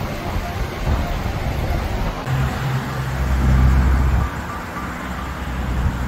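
Loud, steady outdoor rumble from wind buffeting the microphone, mixed with road traffic. It swells for about two seconds in the middle.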